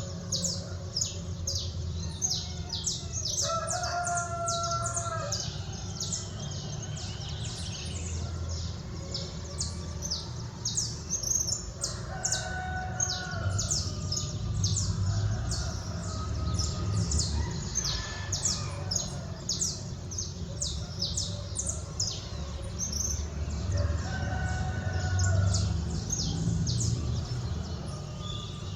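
Small birds chirping rapidly and continuously, and a rooster crowing about three times, once early, once near the middle and once late. A steady low rumble of city noise runs underneath.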